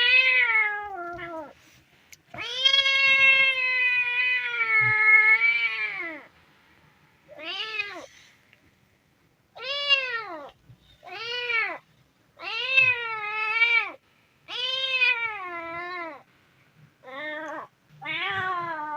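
Hungry kitten meowing again and again: about nine high, arching meows with short pauses between them, the second one drawn out for about four seconds and the rest brief.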